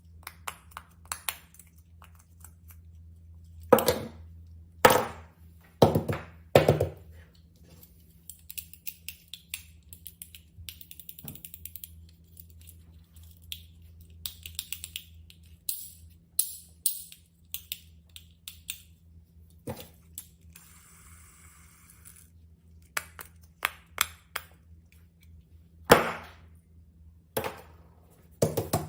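Small objects being handled and set down on a hard surface: irregular clicks and taps, with a few louder knocks about four to seven seconds in and again near the end, over a steady low hum.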